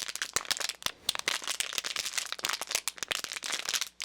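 Plastic bottle being squeezed and crumpled in the hands, a dense run of crackles and crinkles like wood catching in a fire, used as a percussion sound effect.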